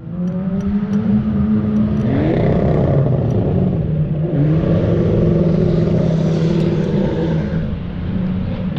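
Car engines revving hard and accelerating in an underground car park: boy racers 'tunnel blasting', screaming through for the noise. The engine note climbs twice, about two and four seconds in.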